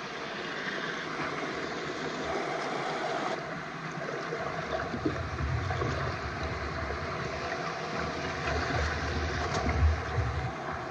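Shallow stream water running over rocks, with low rumbles and knocks of handling as a net is worked through the water, loudest about ten seconds in.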